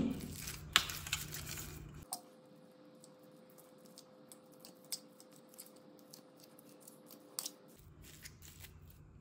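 Fork mashing boiled potatoes in a stainless steel plate: soft squishing with scattered clicks and scrapes of the metal tines against the plate.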